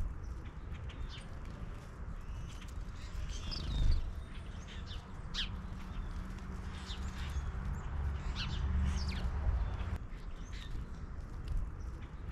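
Small wild birds chirping, with many short high call notes scattered irregularly. A low rumble with a faint steady hum runs underneath, heavier in the second half.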